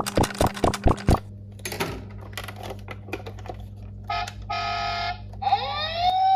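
Plastic clicks from handling a battery-powered toy emergency vehicle, first a quick run of sharp clicks, then scattered lighter ones. Near the end comes a short electronic buzzing effect in two bursts, then the toy's electronic siren winds up, rising in pitch and settling into a steady tone.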